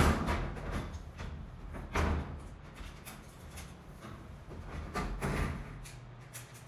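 Metal access panel of an HVAC air handler being put back on: a few clunks and scraping knocks, the loudest at the start, another about two seconds in and a rougher cluster near five seconds.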